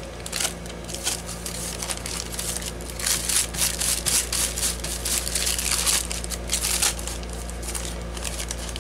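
Sheets of paint-stiffened waxed deli paper crinkling and rustling as hands lift, lay down and smooth them, in irregular bursts that are busiest in the middle.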